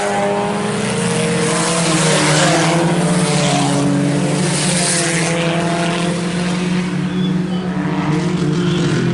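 Engines of a pack of IMCA Sport Compact race cars, four-cylinder front-wheel-drive compacts, racing around a dirt oval, several engine notes overlapping and drifting up and down in pitch as the cars pass.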